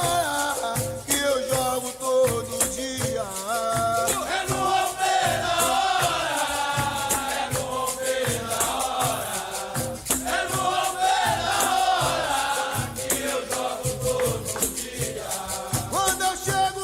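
Capoeira music: a berimbau with its caxixi rattle playing over an even low beat, with voices singing a chant.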